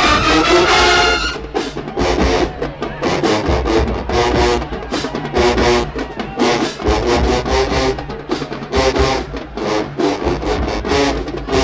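Marching band music: brass near the start, then drums carrying a steady beat under the horns.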